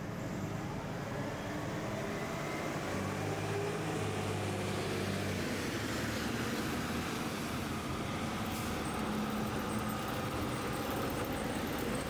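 Fire trucks driving past close by: a steady engine drone, and tyres hissing on the wet, slushy road.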